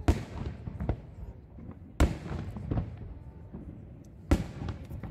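Aerial firework shells bursting: three loud bangs about two seconds apart, with fainter cracks in between, each trailing off in a low rumble.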